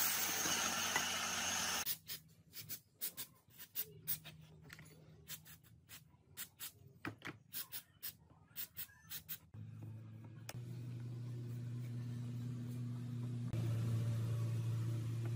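A bench grinder's wire wheel brushing a metal cylinder head for about two seconds. Then comes a run of scattered sharp clicks and taps as small metal parts and tools are handled on a carburettor, and a steady low hum in the last few seconds.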